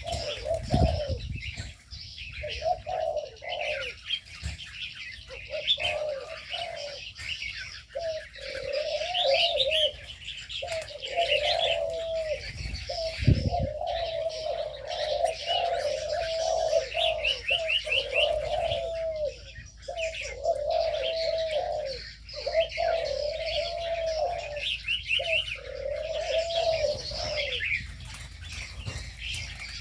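Doves cooing over and over in low, arched phrases, with smaller birds chirping and twittering above them, and a couple of brief low thumps.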